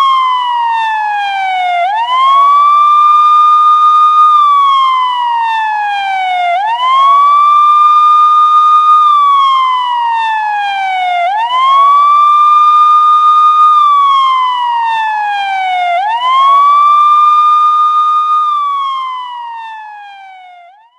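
Police siren on its wail setting: the pitch climbs quickly, holds high, then slides slowly down, about once every five seconds, four times over. It fades out over the last few seconds.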